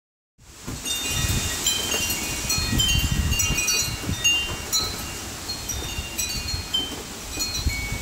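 Wind chimes ringing in gusty wind: many short, scattered high metallic tones over the rumble of wind buffeting the microphone.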